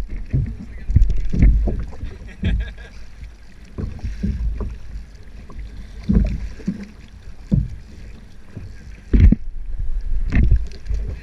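Choppy water slapping and splashing against a kayak hull at irregular intervals, over a steady low rumble of wind on the microphone.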